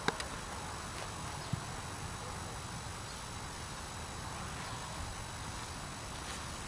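Steady outdoor background noise with a low rumble, broken by two short knocks: one right at the start and one about a second and a half in.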